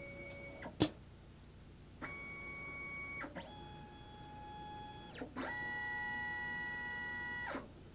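STEPCRAFT CNC's stepper motors whining through three separate axis moves, each whine gliding up in pitch as the move starts and down as it stops. Just under a second in there is a single sharp click, the loudest sound, as the automatic tool changer's spindle takes hold of tool three in the rack.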